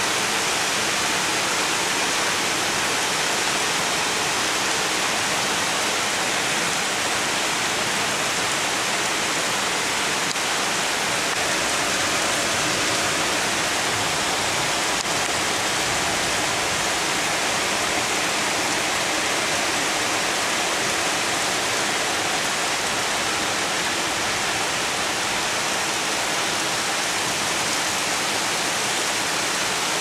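Heavy rain pouring down, a steady dense hiss.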